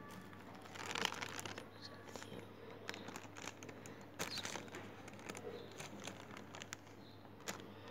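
Clear plastic bag crinkling and rustling while hands work a tub of flour, salt and water slime, with scattered small crackles and clicks, busiest about a second in and again around four seconds. A faint low hum runs underneath.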